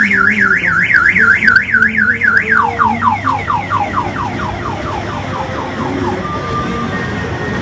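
Electronic siren sound effect from a children's ride or toy, a fast warble of about four rises a second that breaks, about two and a half seconds in, into a string of falling sweeps that fade out over the next few seconds. A few faint steady electronic tones follow.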